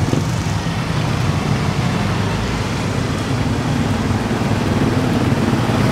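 Street traffic of small motorcycles and scooters running past, a steady low engine drone.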